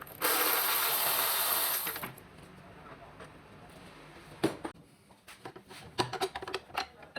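A power tool runs loudly for about two seconds with a hissing whirr, then stops; a few sharp knocks follow.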